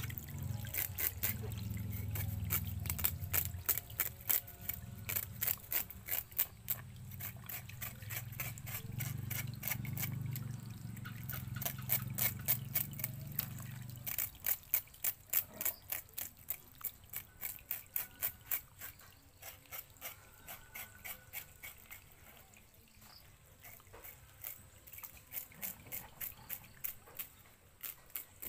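A knife blade scraping the scales off a python's skin on a plastic cutting board, in quick repeated strokes about two to three a second. A low hum runs under the first half and stops about halfway through.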